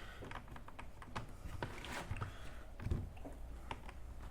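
Faint, irregular plastic clicks and taps from hands handling an HP Pavilion 17 laptop.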